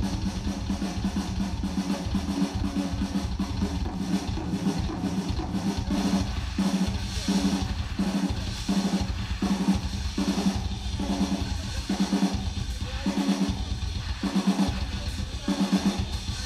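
Live drum solo on a ddrum kit: fast rolls of strokes across snare, toms and bass drum with cymbals. From about halfway in, a low tom beats in a regular repeating pattern under the rolls.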